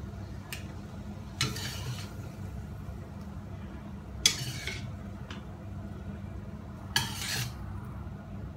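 Metal ladle scraping and clinking against a steel wok as a cooked bitter gourd and duck stir-fry is scooped out into a bowl. There are about four scrapes a few seconds apart, the loudest about four seconds in, over a steady low hum.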